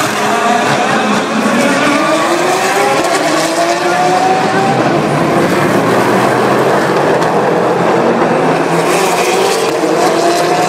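Race car engines accelerating out of a corner, several cars overlapping, each engine climbing in pitch and dropping back as it shifts up through the gears.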